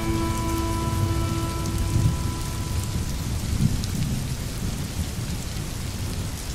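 Steady rain falling, with many small drop ticks over a low rumble of thunder. The last held notes of soft background music fade out in the first couple of seconds.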